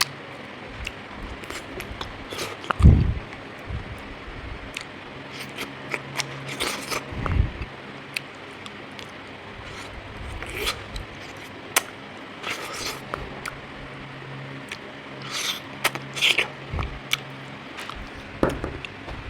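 Eating jackfruit close to the microphone: scattered small clicks, smacks and handling noises, with a few low thumps, the loudest about three seconds in, over a faint steady hum.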